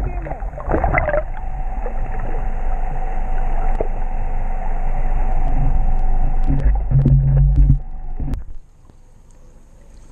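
Boat engine running with a steady low rumble and a constant hum, cutting off sharply about eight and a half seconds in.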